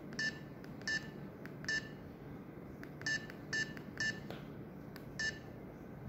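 Keypad tones of an Alcatel OT-1054D feature phone: seven short, identical beeps at uneven intervals as its keys are pressed to back out of the menus to the home screen.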